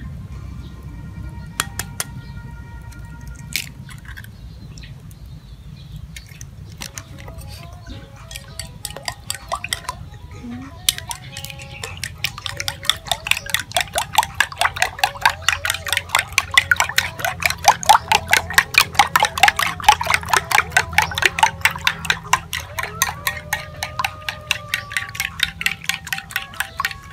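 Metal spoon beating raw eggs in a white ceramic bowl, clinking against the bowl's side in a quick steady rhythm several times a second, starting about eleven seconds in. Before that, a few single clinks as eggs are cracked into the bowl.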